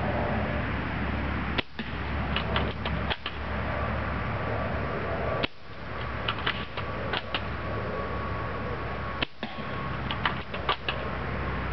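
UTG MK96 spring-powered bolt-action airsoft sniper rifle firing three times, about four seconds apart. Each shot is a sharp snap followed by a quick run of clicks as the bolt is worked to re-cock the spring. A steady background hum runs underneath.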